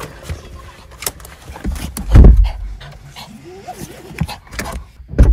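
A dog panting, with a short whine about three and a half seconds in. Two heavy deep thumps, about two seconds in and near the end, are the loudest sounds.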